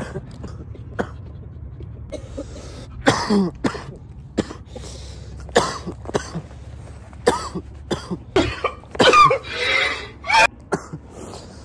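A man coughing hard in repeated short fits, with some throat clearing, the coughing that follows taking a dab of cannabis concentrate. The coughs start about three seconds in and build to a longer bout near the end.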